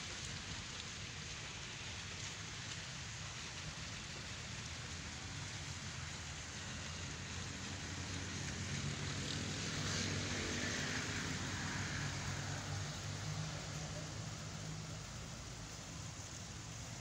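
Small fountain jets splashing into long tiled basins, a steady watery hiss, under a low rumble that grows louder in the middle.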